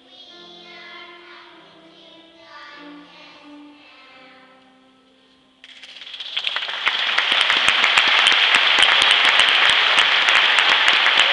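Young children's choir singing softly as a song draws to a close. About halfway through, audience applause breaks out suddenly and goes on loudly.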